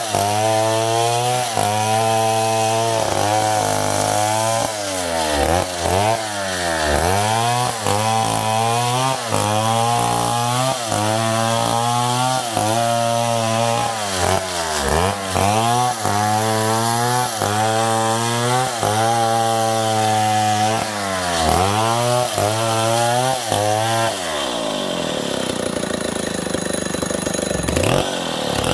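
Stihl 070 two-stroke chainsaw cutting wood at high revs, its engine pitch dipping and recovering about once a second as the chain works through the cut. Near the end the engine speed falls away for a few seconds, then climbs again.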